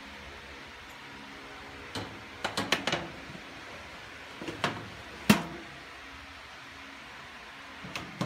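Metal clatter of a baking tray and oven rack as a tray is slid into a countertop toaster oven: a rattling run of clicks, a few more knocks, one sharp loud knock about five seconds in, and another click near the end.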